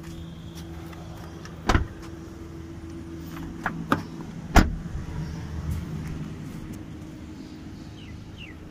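Doors of a 2019 Volkswagen Polo hatchback being shut: two solid thuds about three seconds apart, the second louder, with a couple of lighter latch clicks between them, over a steady low hum.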